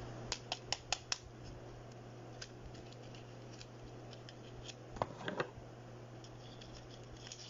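Light clicks and snips of a taped perfume sample card being opened, with scissors at it: a quick run of about five clicks in the first second, then a few more about five seconds in.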